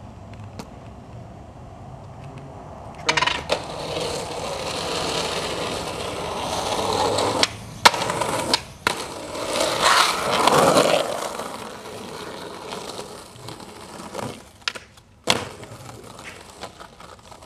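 Skateboard wheels rolling on street pavement, broken by several sharp cracks as the tail pops and the board lands.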